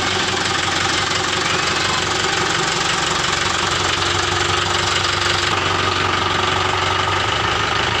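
Mahindra Yuvo 475 DI tractor's 42 hp diesel engine idling steadily; its tone shifts slightly about five and a half seconds in.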